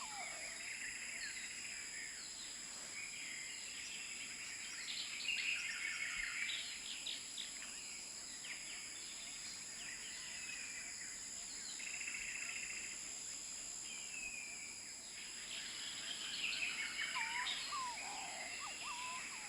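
Several birds chirping and trilling on and off, busiest about a quarter of the way in and again near the end, over a steady high-pitched drone.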